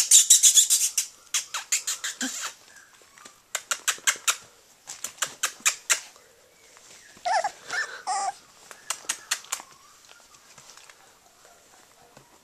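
Three-week-old Australian Shepherd puppies: two short whimpers about seven and eight seconds in, among runs of quick sharp clicks. It goes quiet for the last couple of seconds.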